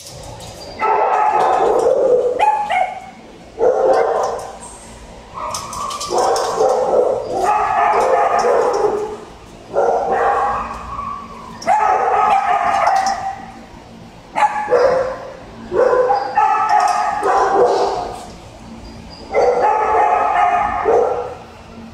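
Shelter dogs in a kennel room barking and yipping in repeated loud bursts, one every second or two.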